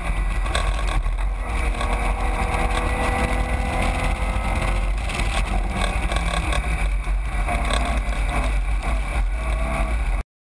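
Onboard sound of a Caterham 7 race car at speed: heavy wind buffeting on the microphone over the engine, whose faint note rises slowly and then drops away about five seconds in. The sound cuts off abruptly near the end.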